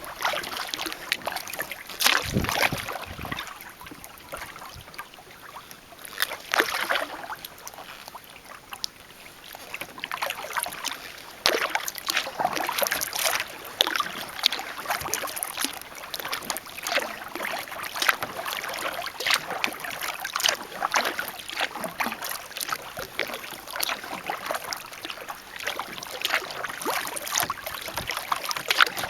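Kayak paddling: the paddle blades dip and splash, and water drips and trickles off them in an uneven run of small splashes. There are a couple of duller knocks about two to three seconds in.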